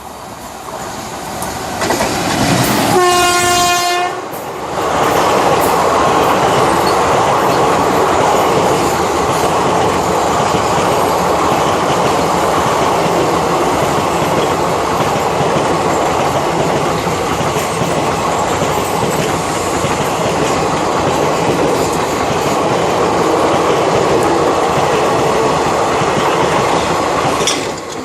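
Express train sounding a single horn blast of about a second, about three seconds in, then running past at speed: a loud, steady rush of wheels and carriages with clickety-clack that drops off suddenly just before the end.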